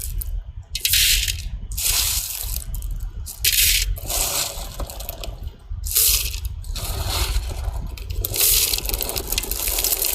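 Tiny snails being washed in water, their shells rattling and scraping together in irregular bursts.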